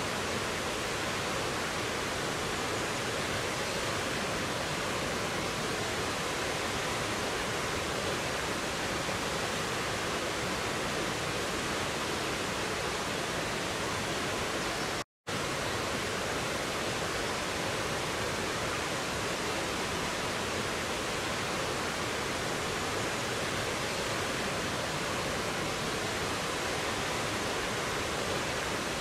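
Rocky mountain stream flowing over boulders and down a small waterfall: a steady, even rush of water. The sound drops out completely for a split second about halfway through.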